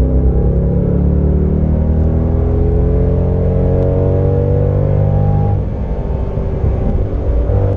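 Corvette C6's LS2 V8 pulling hard under full acceleration, heard inside the cabin, its note rising steadily in pitch. About five and a half seconds in the note breaks and drops briefly, as at an upshift, then picks up again near the end.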